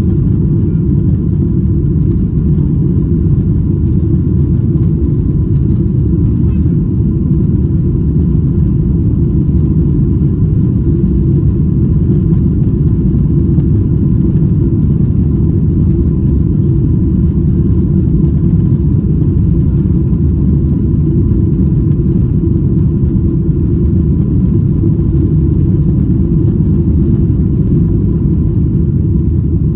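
Steady low rumble of a Boeing 777-200ER heard from inside the passenger cabin, with a faint steady tone above it.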